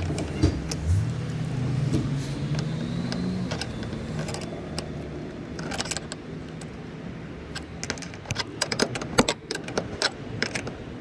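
Channel-lock pliers clicking and clinking against the small metal nuts of a Jeep Wrangler JK hood latch as they are tightened: a run of sharp metallic clicks, densest near the end. A low steady hum sits under the first few seconds.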